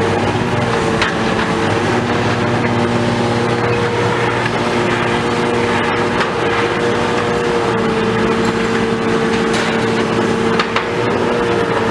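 A demolition machine's diesel engine running steadily under load, with crunching and sharp cracks of breaking debris.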